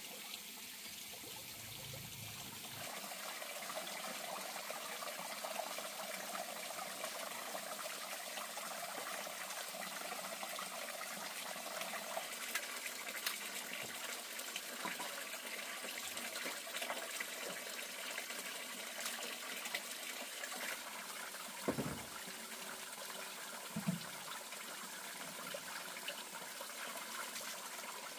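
Water running steadily, with two dull knocks a couple of seconds apart late on.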